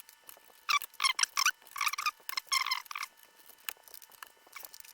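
Plastic clicking and clacking of Cherry MX key switches and keycaps on a keyboard being pressed and handled, in several quick clusters of clicks.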